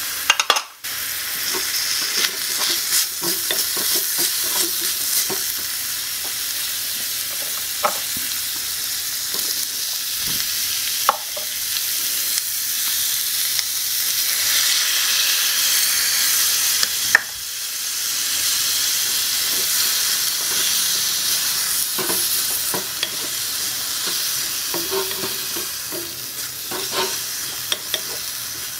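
Stir-fry sizzling in a miniature aluminium wok over a gas flame, a steady high hiss, with a small wooden spatula clicking and scraping against the pan as the food is stirred. The sizzle is loudest in the middle, as broccoli goes into the wok.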